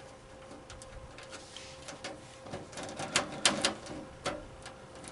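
Small clicks and taps of a screwdriver with a special security bit working the screw of a metal desktop PC case, with a run of sharper knocks about two and a half to four seconds in. A faint steady hum runs underneath.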